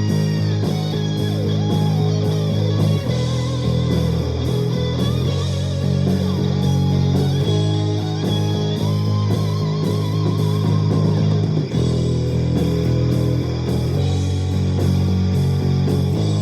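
Luxars S-KB20 travel-size electric bass playing low sustained notes that change every second or two, with guitar-like melodic lines above in a rock-style mix.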